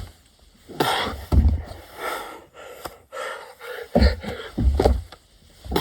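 Heavy gasping breaths of a man doing burpees, a hard breath every second or so, with dull low thumps beneath several of them.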